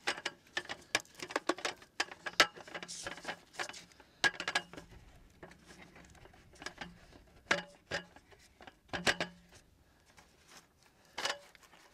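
A low folding camp table with a wooden slat top clacking and knocking as it is set up by hand: a run of irregular clicks and taps, busiest in the first half.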